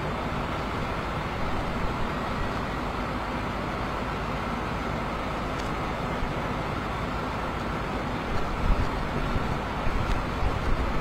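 Steady rushing outdoor noise with low, buffeting gusts of wind on the microphone, growing gustier about eight seconds in.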